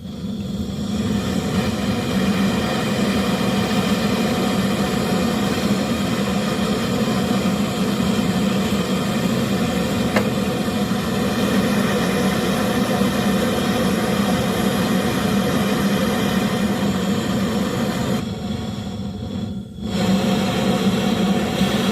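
A motor running with a steady mechanical drone. It thins out briefly for a couple of seconds near the end.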